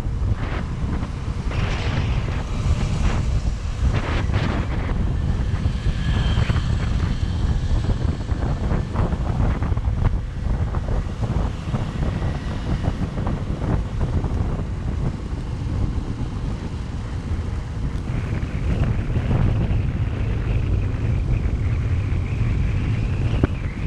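Wind buffeting the microphone of a camera riding on a moving vehicle, a heavy rumble with road and traffic noise under it. A thin high whine comes in about eighteen seconds in and climbs near the end.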